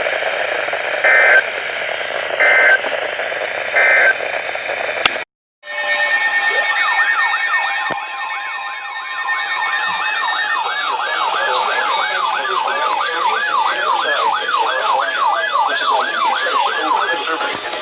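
Emergency Alert System broadcast audio. Three short data bursts, the end-of-message tones, sound over a hissy radio feed. After a brief cut, the next alert's attention signal plays: a siren-like rising sweep repeating rapidly over steady tones.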